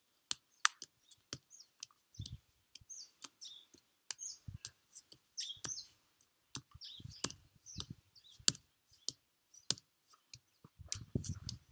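Forearms and fists striking a tree trunk in repeated, irregular knocks, some sharp and some dull thuds, with birds chirping.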